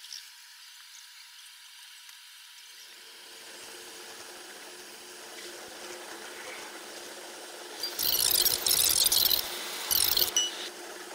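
A train-cab recording played back at ten times normal speed, so every sound is shrill and hurried. A steady hiss runs under a faint hum. About eight seconds in come loud, high, rapidly wavering chirps lasting a second or two, then another short burst.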